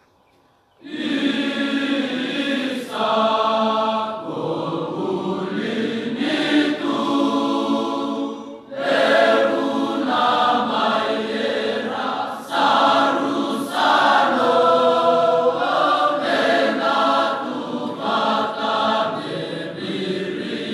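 A large massed choir of students singing a Fijian song together in long, held chords, starting about a second in. The phrases break briefly twice.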